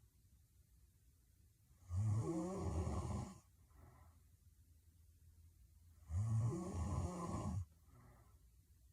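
A sleeping woman snoring heavily: two loud snores about four seconds apart, each lasting about a second and a half and followed by a soft breath out.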